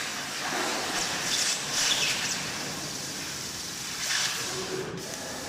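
Laser cutting machine running: a steady hiss with louder surges about a second and a half, two seconds and four seconds in.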